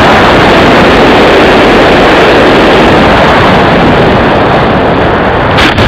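Loud, even rush of air and the electric motor of a HobbyKing Bixler RC plane in flight, heard from a wing-mounted camera. A sharp crack comes near the end.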